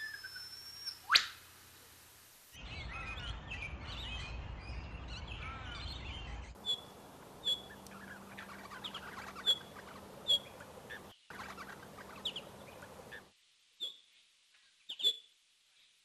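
Yellow-tufted honeyeaters calling: a jumble of chattering notes over a low rumble, then a run of short, sharp calls about once a second. About a second in, before the calls, there is a single loud sharp click.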